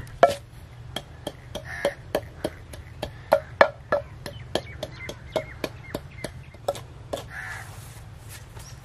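A long wooden pestle pounds dried pomegranate seeds (anardana) in a clay mortar, knocking steadily about three times a second as it crushes them coarse. A bird calls twice in the background.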